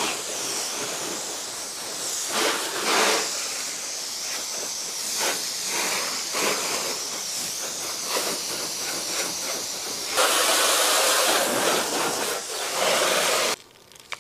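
Water spraying from a garden hose nozzle onto a car's bodywork and windshield, a steady hiss with shifting spatter. It gets louder about ten seconds in, then cuts off abruptly near the end.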